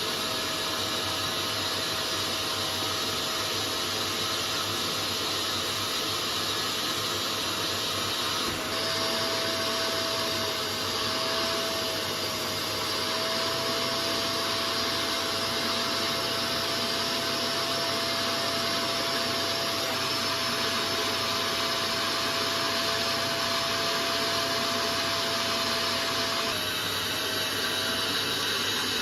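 Upholstery cleaning machine running steadily: a motor whine over a high hiss of suction. The tone shifts abruptly about nine seconds in and again near the end.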